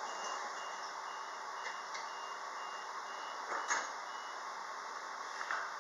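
Door-closing warning beeper on a Queensland Rail IMU 160 series electric train: a high beep repeating about twice a second, stopping a little past three seconds in as the sliding doors shut with a thud.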